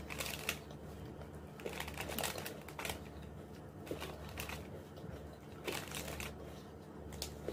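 Plastic snack sachet crinkling as fingers dig in and pick out chocolate snack pieces, heard as scattered short crackles and clicks.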